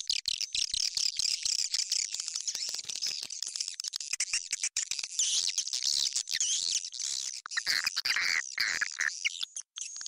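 Swiftlet calls played as a lure: a dense, continuous twittering and chirping of many birds at once, high-pitched and full of quick clicks. It is a call recording meant to attract swiftlets into a swiftlet house.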